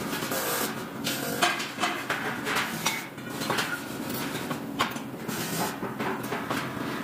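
Irregular metallic clinks and clatter of aluminium ladder parts being handled and set down on a welding table, over a steady factory hum.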